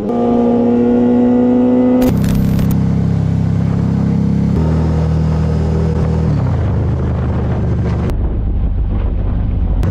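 A sport motorcycle's engine running at high revs, its pitch rising slightly, then a brief hiss about two seconds in, followed by a cruiser motorcycle's engine running low and rough as it rides along in traffic, its pitch stepping down a few times.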